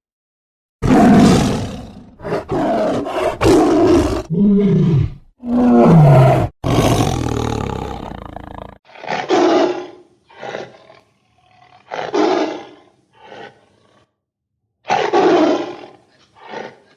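Tiger roaring: a run of loud calls that fall in pitch for about eight seconds, then four or five shorter calls a second or two apart.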